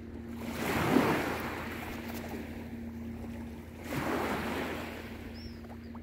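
Small waves on a calm sea washing onto the beach twice, about a second in and again about four seconds in, each a soft rush that swells and fades. A steady low hum runs underneath.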